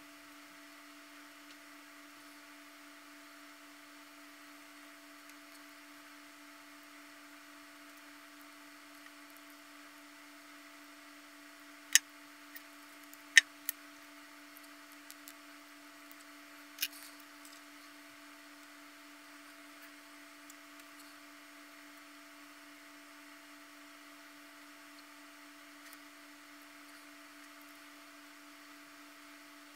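Steady electrical hum under faint hiss, broken about halfway through by four or five sharp clicks: plastic puzzle parts clicking as the puzzle core is put together.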